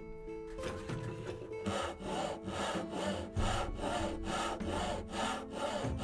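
Handsaw cutting through a block of wood in steady back-and-forth strokes, about two a second, starting a couple of seconds in. Background music plays underneath.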